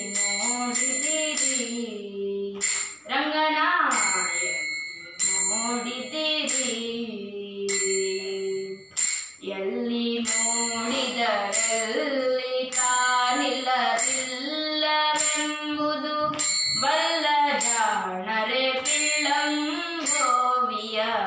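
A devotional bhajan sung by young voices, kept in time by small hand cymbals (taal) struck in a steady beat, each strike ringing briefly.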